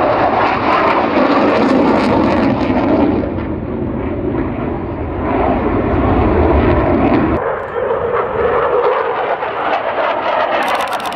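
Jet aircraft engine noise from a passing aircraft, a loud rushing roar with a deep rumble. About seven seconds in the rumble cuts off abruptly, leaving a thinner, quieter engine rush.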